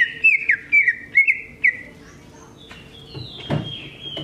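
Cucak ijo (green leafbird) singing: a fast run of sharp, falling whistled notes over a steady high warble for about two seconds, then softer, longer whistles. A dull thump comes about three and a half seconds in.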